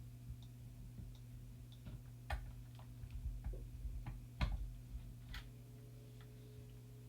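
Irregular small clicks and taps of plastic camera parts being handled and pried apart during disassembly of a Canon camera, the sharpest about two and four and a half seconds in, over a faint steady low hum.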